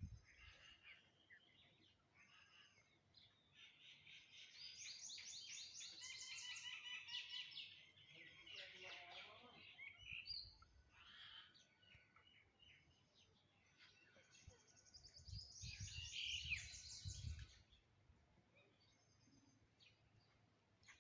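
Songbird singing faintly in fast trilling phrases of rapidly repeated high notes. There are two longer bouts, about four and fifteen seconds in, with shorter calls between them. A low rumble sounds under the second bout.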